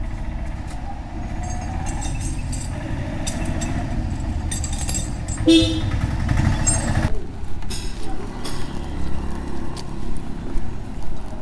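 Royal Enfield Bullet's single-cylinder engine running, with a clatter of knocks a little past the middle that peaks about five and a half seconds in.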